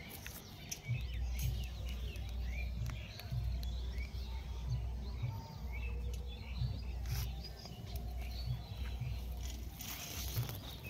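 Small birds chirping in many short, quick calls, over a steady low rumble.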